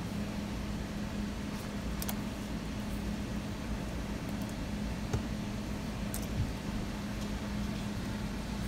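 Steady low mechanical hum of a kitchen appliance, with a faint held tone, and a few faint clicks scattered through it.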